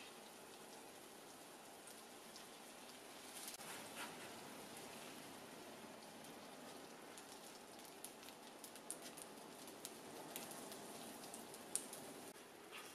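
Egg frying in oil in a nonstick frying pan: a faint, steady sizzle scattered with small crackling pops, which grow busier in the second half. A few soft scrapes of a plastic spatula as the omelette is folded over.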